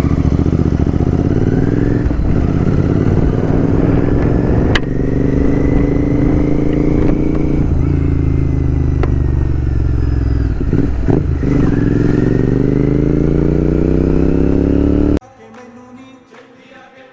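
Royal Enfield GT 650's parallel-twin engine running loud through an open exhaust with the dB killer removed, its pitch climbing under throttle and dipping briefly a few times as the bike is ridden, with a sharp click about five seconds in. Near the end it cuts off to faint background music.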